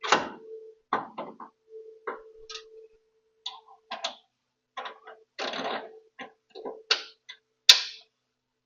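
Tools and metal parts clinking and knocking in irregular strikes, the loudest a sharp clank near the end, over a faint steady hum.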